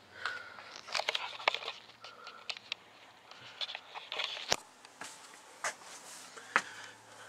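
Irregular clicks, knocks and shuffling of someone moving about inside a small locomotive cab, with a few sharper knocks, the sharpest about four and a half seconds in.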